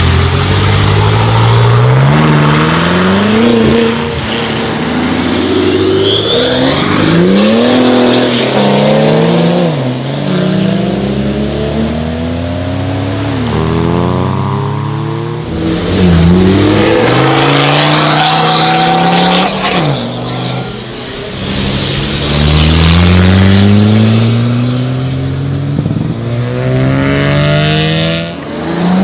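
Several cars in turn accelerating hard away, each engine revving up through the gears with a drop in pitch at every shift. A brief high whistle rises about six seconds in.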